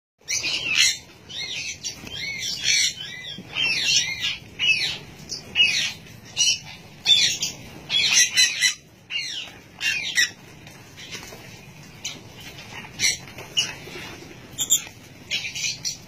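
Flock of sun conures and lovebirds calling over one another with harsh squawks and chirps. The calls are dense for the first ten seconds or so, then sparser.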